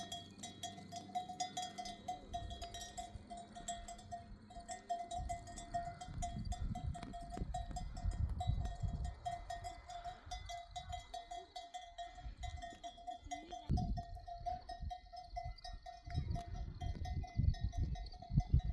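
Livestock bells ringing continuously, one steady note that pulses unevenly as the animals move, over a low rumbling noise.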